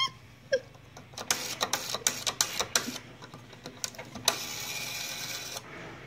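Rotary dial of a vintage wall telephone spinning back, giving a quick run of clicks, about ten a second, for under two seconds; later a steady whirring noise of a little over a second as the dial turns again.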